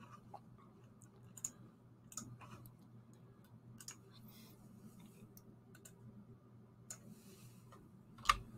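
Computer mouse clicking now and then: a few faint single clicks, with a louder one near the end, over a low steady hum.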